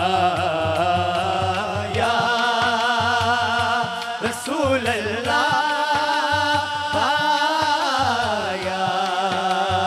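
Men singing a Punjabi devotional kalam in long, wavering held notes that dip about halfway through and slide downward near the end, over a steady beat of frame drums (dafs).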